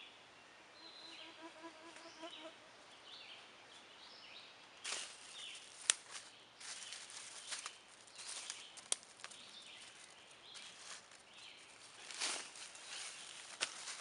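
Dry leaf litter rustling and crackling as dead sticks are gathered off the forest floor by hand, with a couple of sharp twig snaps. Faint chirping calls and a short pulsing trill come in the first few seconds, before the rustling starts.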